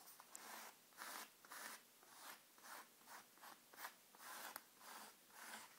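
Edge of a manila paper tag scraping gesso through a stencil on a craft tag: faint, repeated short scraping strokes, about two a second.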